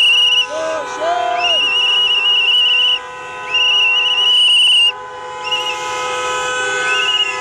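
Whistle blown in long, high, steady blasts, the longest about a second and a half and the last ones short. Under them, a line of cars honks their horns without pause in celebration.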